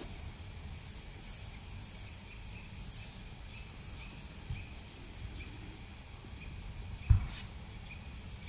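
Quiet outdoor winter ambience: a steady low rumble with faint high ticks, and one dull thump about seven seconds in, the loudest sound.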